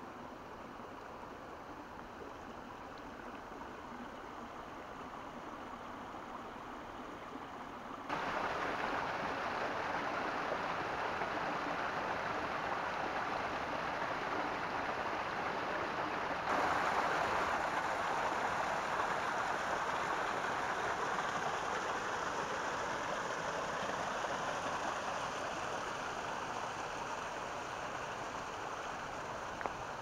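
Shallow stream water rushing and rippling over rocks, a steady sound that jumps louder suddenly about a quarter of the way in and again about halfway.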